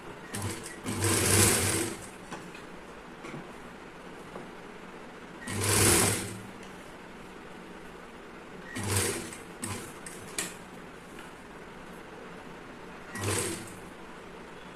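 Industrial sewing machine stitching in several short bursts, the longest about a second, with pauses between them as a folded piping strip is fed under the presser foot.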